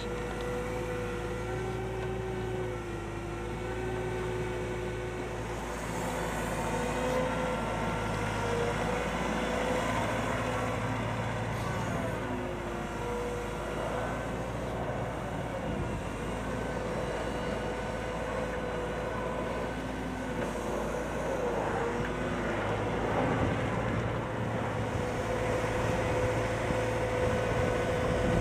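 CAT M313D wheeled excavator's diesel engine running steadily under working load, its steady tones dipping and shifting in pitch now and then.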